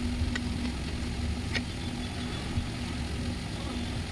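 Steady low engine hum with a steady drone above it, and two light clicks, one near the start and one about a second and a half in.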